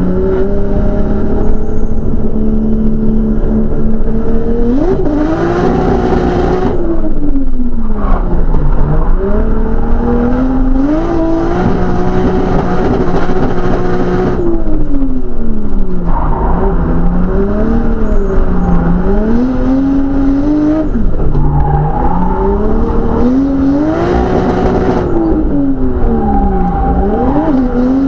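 Car engine heard from inside the cabin while the car is driven hard around a track during drift practice. The revs climb and fall repeatedly through the corners and are held high for a second or two several times.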